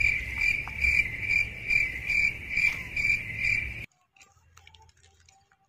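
Cricket chirping: a steady high trill pulsing about twice a second over a low rumble, which cuts off suddenly about four seconds in.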